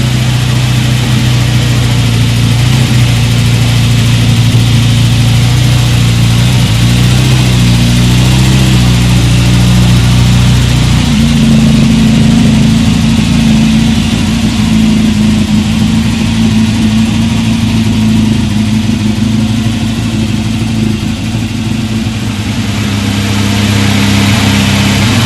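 1976 Jeep CJ7 engine running steadily. Its note changes about halfway through, with a higher tone coming to the fore, and it grows a little louder near the end.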